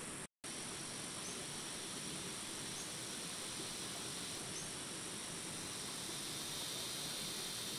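Steady forest insect drone in a high, even band, with three faint short chirps. The sound cuts out completely for a moment near the start.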